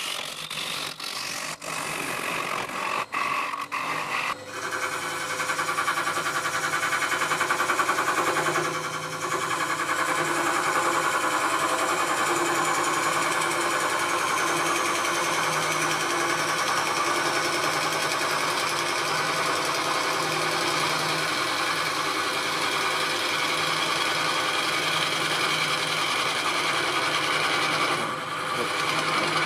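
Gouge cutting a spinning leylandii (conifer) bowl blank on a wood lathe, a steady rasping cut over the running lathe. The first few seconds are choppy with sudden short breaks, then the cut runs on evenly, with a brief dip about nine seconds in and another near the end.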